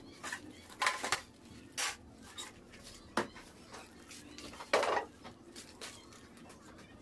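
Metal spatula clacking and scraping against an aluminium baking tray as cut macaroon squares are lifted out, a few sharp knocks spaced a second or more apart, the loudest near the five-second mark.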